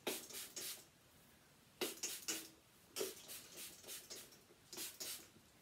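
Finger-pump spray bottle of Cut by Fred hair mist giving a series of short hisses, in quick groups of two to four, as it is sprayed onto damp hair.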